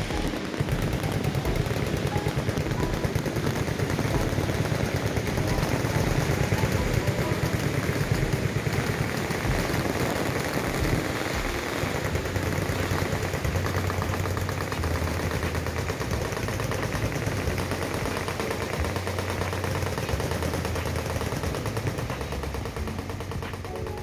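Many machine guns firing full-auto at once, a dense, continuous rattle of gunfire.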